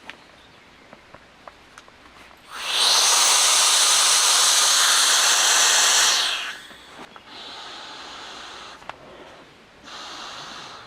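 A loud, steady hiss that lasts about four seconds, then two shorter, fainter hisses.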